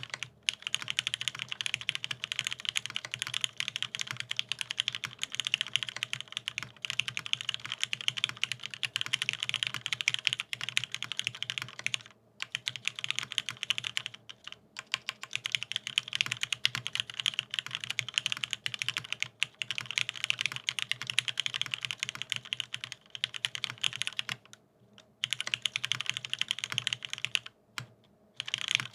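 Fast continuous typing on a mechanical keyboard with lubed vintage Cherry MX Black linear switches in an aluminium plate and Cherry dye-sub keycaps: a dense stream of keystroke clacks, broken by a few short pauses.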